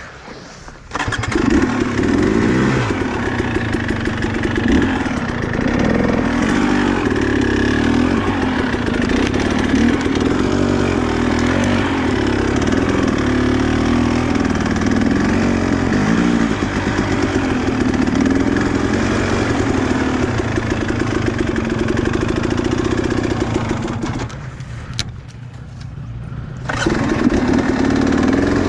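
Small two-stroke engine running hard at high revs for a long stretch. It starts about a second in, falls back for a couple of seconds near the end, then picks up again.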